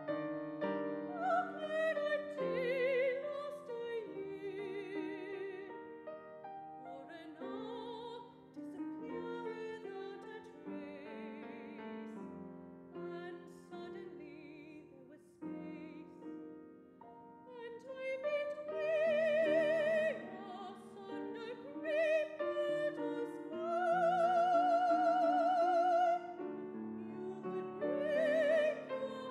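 Operatic soprano singing with wide vibrato over grand piano accompaniment in a classical art song. Two long held notes in the second half are the loudest.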